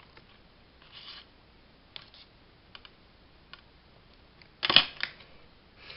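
Scattered light clicks and taps from hands handling a paper tag on a glass craft mat, with a soft rustle about a second in and a louder cluster of sharp clicks about three-quarters of the way through.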